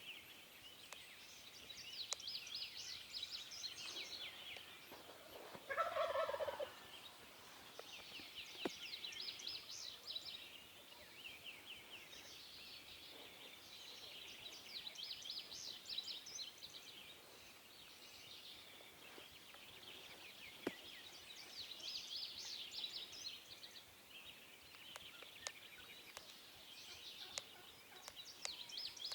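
A wild turkey gobbles once, loudly, about six seconds in, a rapid rattling call that drops in pitch over about a second. Small birds chirp continuously behind it.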